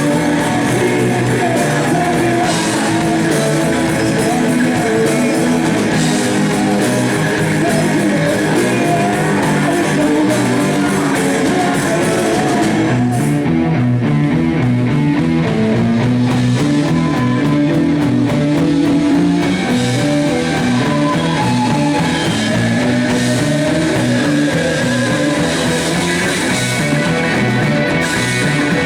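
Live blues-rock band playing loud, with electric guitar riffs, drums and singing.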